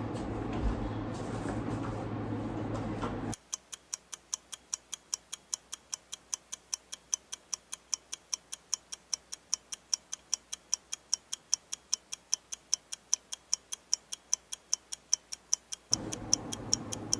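Room tone with a low hum, then, about three seconds in, a ticking-clock sound effect over otherwise silent audio, at about four ticks a second. Room noise comes back under the ticking near the end.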